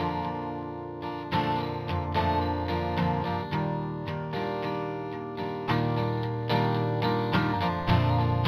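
Background music led by plucked guitar, a steady run of picked notes and chords.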